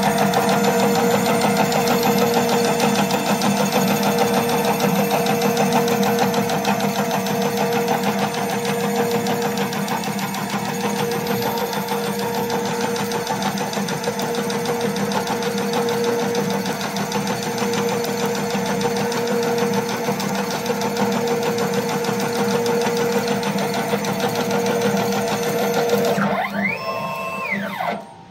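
Automated wire-harness tape wrapping machine running at high speed: a steady mechanical whir with a fast, even chatter and a constant hum. Near the end the machine sound drops away and a short tone rises and falls.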